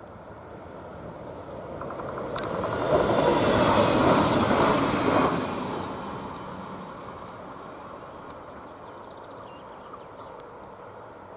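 A blue locomotive passing by: it grows louder, is loudest from about three to five seconds in, then fades away, with a high whine falling in pitch as it goes past.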